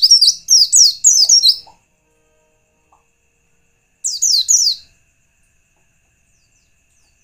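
A white-eye (pleci) singing rapid runs of high, falling chirps. One run lasts until nearly two seconds in, and a second shorter run comes about four seconds in, with silence between them.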